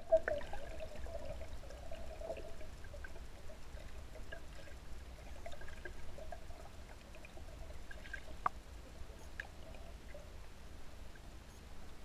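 Faint, muffled water sounds heard with the camera underwater: a steady low rumble with scattered small clicks and ticks, one sharper click about eight seconds in.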